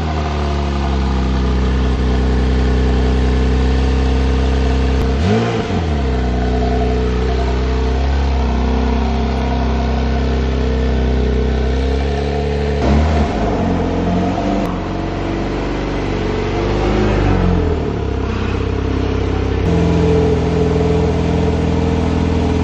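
Porsche 991.2 911 Carrera T's twin-turbo 3.0-litre flat-six on its factory exhaust, idling just after start-up. It is blipped three times, the pitch rising and falling back to idle: about five seconds in, near thirteen seconds and, more lightly, near seventeen seconds.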